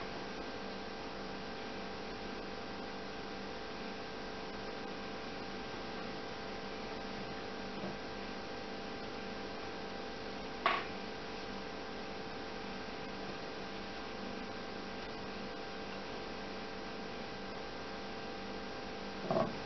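Steady electrical mains hum with a constant hiss, the recording's background noise. A single short click about halfway through.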